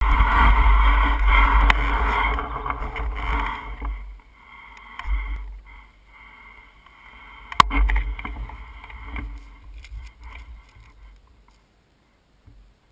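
Mountain bike rolling over rough grass: wind rushing on the camera microphone and the bike rattling for about four seconds, then quieter knocks and rattles with one sharp knock about halfway through, dying away as the bike comes to a stop.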